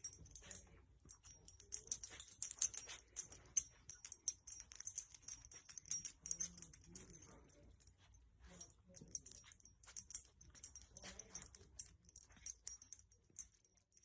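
Faint, irregular clicking and scratching from a dog, coming in clusters of quick taps.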